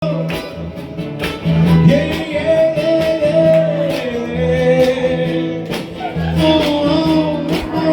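Strummed acoustic guitar playing a song with a steady beat and a melody line gliding over it.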